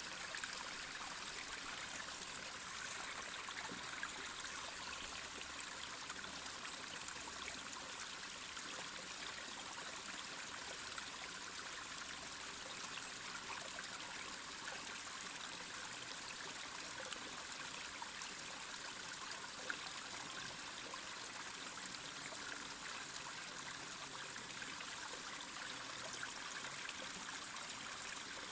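Mountain stream flowing over rocks: a steady rush of water with small splashes and trickles.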